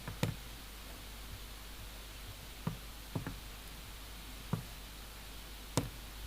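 Five scattered single clicks, like isolated keystrokes on a computer keyboard, over a steady background hiss.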